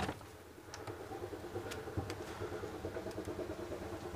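Steam locomotive approaching: a fast, regular working beat that grows steadily louder.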